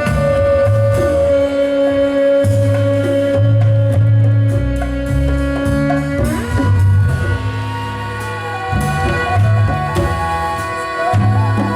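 Live band music: a lead melody instrument holds one long note for about six seconds, then slides up into a moving melody over a pulsing bass line and drums.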